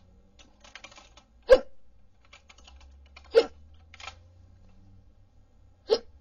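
A person hiccupping three times, about two seconds apart, each hiccup short and sharp. Faint quick clicking comes between the hiccups.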